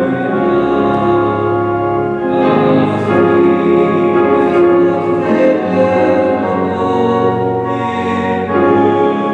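Voices singing a hymn together with instrumental accompaniment, the notes held steadily and changing about once a second.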